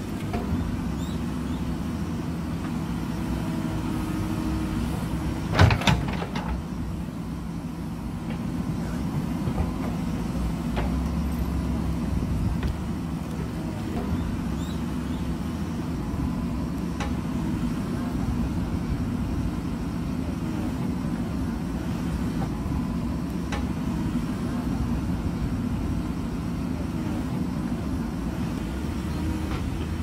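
JCB backhoe loader's diesel engine running steadily while the backhoe arm digs soil and rock. One loud knock comes about six seconds in, and a few lighter knocks follow later.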